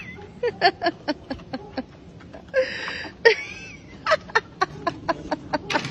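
A person laughing in rapid breathy bursts, in two runs with a hissy breath between them.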